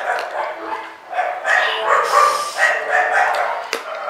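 A dog barking repeatedly, about two barks a second.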